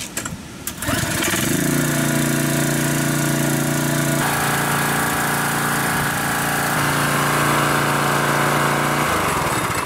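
Small single-cylinder Briggs & Stratton 675-series engine on a Craftsman pressure washer starting about a second in and then running steadily, cutting off near the end. It runs smoothly, a freshly cleaned carburetor having cured its habit of starting and then dying.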